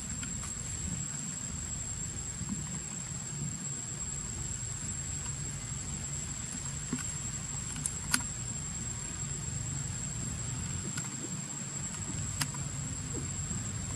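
Outdoor forest ambience: a steady high-pitched insect drone over a low rumble, with a few sharp clicks, the clearest about eight seconds in.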